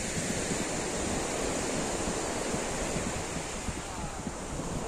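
Small waves breaking and washing over a pebble shore in a steady surf, with wind buffeting the microphone.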